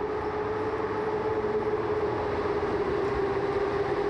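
Electric locomotive hauling passenger coaches past: a steady running noise with a single held whine, slowly growing louder.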